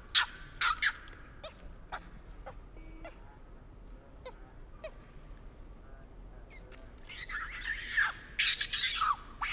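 Baby monkey calling: short, sharp squeaks at first, then a long, harsh run of screams with falling cries from about seven seconds in.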